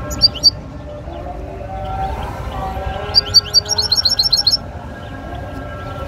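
Caged European goldfinch calling: two quick rising chirps at the start, then about three seconds in a fast run of about nine sharp rising chirps. A drawn-out call to prayer is chanted steadily underneath.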